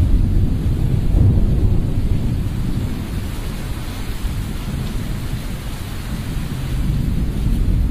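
Thunderstorm sound: low rumbling thunder over a steady hiss of rain, swelling in the first second or so and again near the end.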